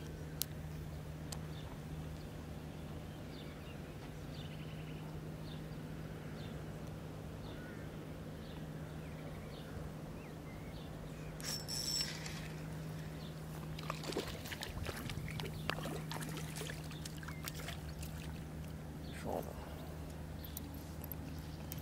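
A spinning reel clicking and rattling as a small perch is hooked and reeled in to the bank, the clicks bunched in the second half. A steady low hum runs underneath throughout.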